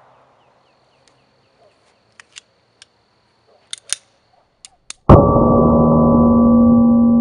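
The dying echo of a P-64 pistol shot, then a few light clicks and clacks as the pistol is handled after firing. About five seconds in, a loud gong-like tone starts abruptly and rings on steadily.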